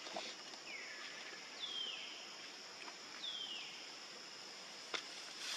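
A steady high insect buzz, with three falling whistled calls in the first few seconds and a sharp click near the end.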